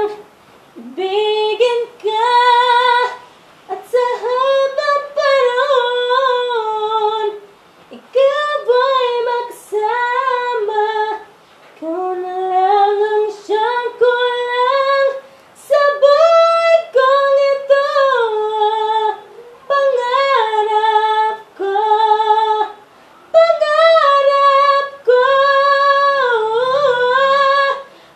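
A woman singing a melody unaccompanied, in phrases a second or two long with short breaks between them, the voice wavering and gliding in pitch. The voice echoes a little off the hard surfaces of a small tiled room.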